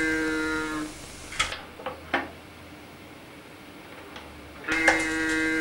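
Hand-worked cow automaton's mechanical moo: a steady reedy tone that stops about a second in. A few clicks and knocks of the lever mechanism follow, then the moo starts again near the end.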